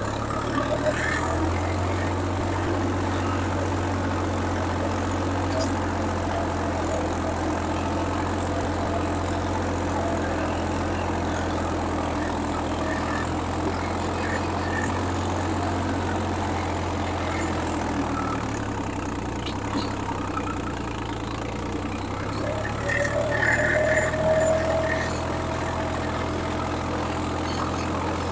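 Swaraj 855 FE tractor's three-cylinder diesel engine running steadily under load while pulling a tillage implement through the soil; its fuel injection pump has been modified and it runs without a turbo. The engine note shifts about 18 seconds in, and a brief, louder, higher-pitched sound comes in about 23 seconds in.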